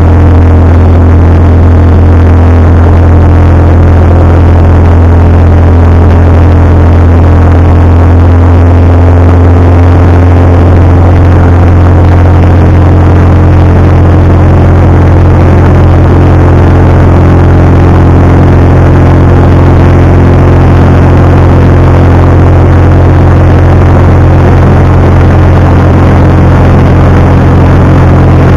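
Jabiru light aircraft's piston engine and propeller running loud and steady, heard from inside the cockpit during the takeoff run and initial climb.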